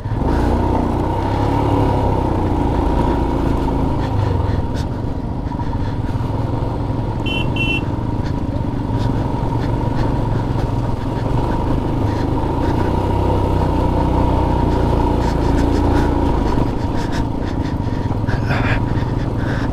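Motorcycle engine running under way through a water crossing on a mountain road, its note rising and falling over a heavy low rumble.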